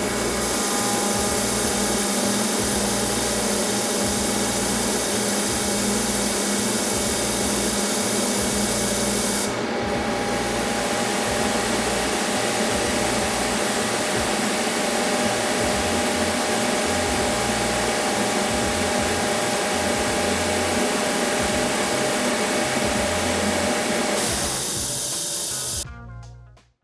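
Sullivan-Palatek 75UD 75 hp rotary screw air compressor running, a loud steady whir and hiss with humming tones. Its tone shifts briefly about ten seconds in, and the sound cuts off near the end.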